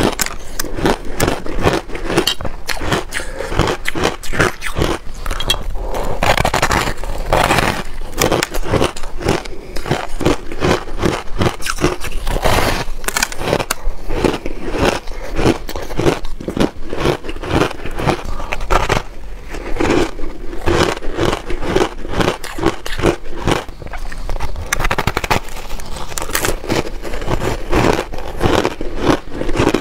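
Biting and chewing a block of reshaped, packed powdery ice close to a clip-on microphone: dense, continuous crunching and crackling with many small crisp snaps.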